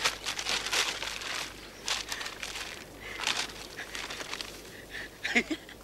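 Irregular rustling and scuffing, short noisy bursts spaced about a second apart, with a short pitched vocal sound near the end.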